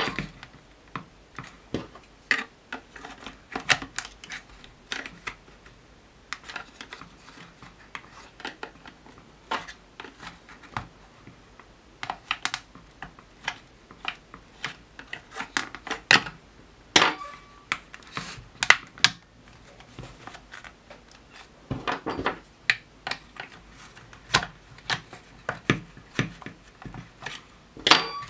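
A small metal tool scraping and tapping against the plastic cyclone cones of a Dyson DC62 vacuum as caked dust is picked out: a run of irregular clicks and short scratches.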